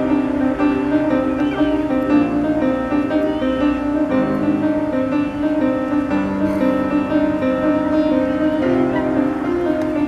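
Slow instrumental background music with held chords that change every second or two, piano to the fore.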